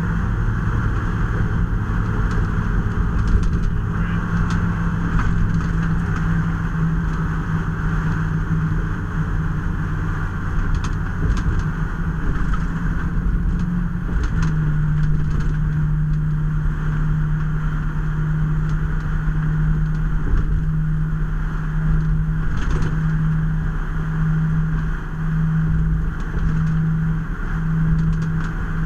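Fire department squad truck on the road: steady engine drone with road noise. About halfway through the engine note shifts slightly, and near the end it pulses evenly.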